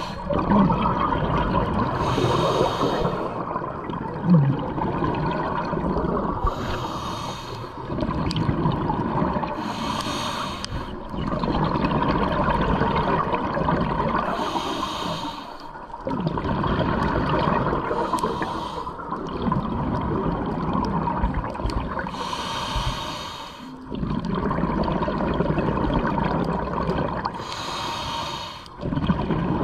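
Scuba diver breathing through a regulator underwater: every few seconds a short hiss as a breath is drawn, then a longer rush and rumble of exhaust bubbles as it is let out.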